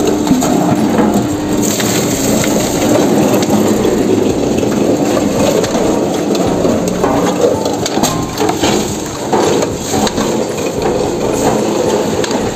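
Coconut dehusking machine, driven by a 3 HP Crompton electric motor, running while it tears and crushes the husk off a coconut. It makes a steady, loud grinding full of dense cracking and snapping of the fibrous husk.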